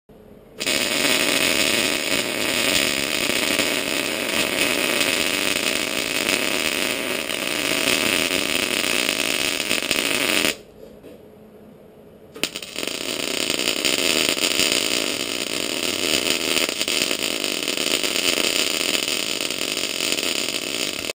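Wire-feed (MIG) welding arc running on the steel tooth shanks of an excavator bucket: a steady arc noise that starts about half a second in, stops for about two seconds just past the middle, then strikes up again for a second bead.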